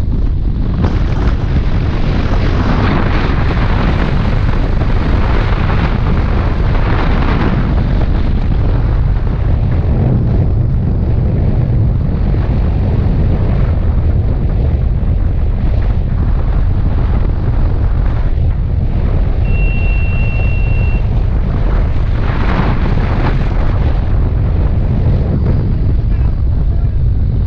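Wind blasting across an action camera's microphone held out on a selfie stick from a moving Bajaj Pulsar motorcycle at highway speed, a loud steady rush with the bike's engine underneath. A brief steady high tone sounds once, about twenty seconds in.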